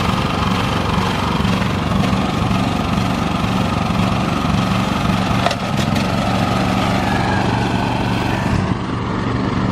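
Rice transplanter's small engine running steadily, with a brief dip and a click about halfway through.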